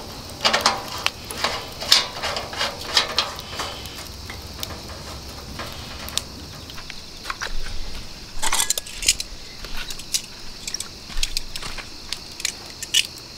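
Metal clinks and taps from handling a chrome Petromax pressure lantern, with a denser run of clicks a little past halfway, as the lantern is readied for its alcohol preheat.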